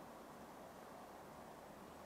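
Near silence: room tone with a faint, steady hiss.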